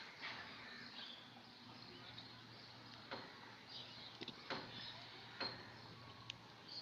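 Quiet handling sounds of sewing a button onto crocheted work by hand: a few faint clicks and rustles of needle, thread and button, with faint high bird chirps behind.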